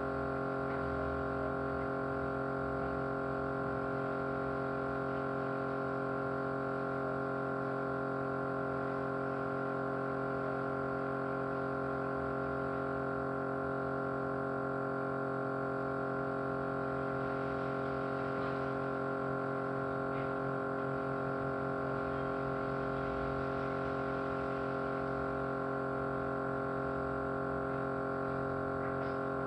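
Small motor running with a steady vibrating hum, unchanging in pitch and loudness.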